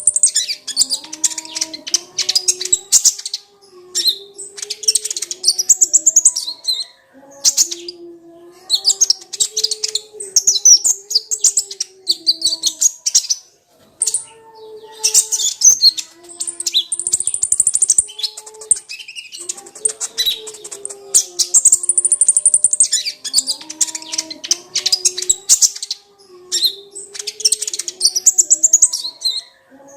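A sunbird, the kolibri ninja (konin), singing rapid, very high-pitched chattering phrases. The bursts last a couple of seconds each and repeat with short pauses, over a quieter, lower wavering tone.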